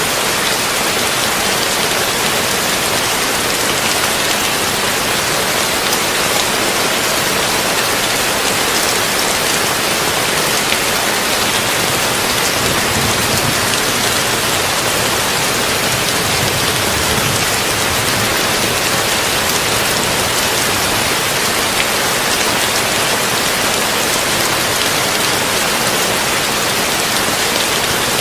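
Heavy rain falling steadily on a tin roof, an even hiss that does not let up.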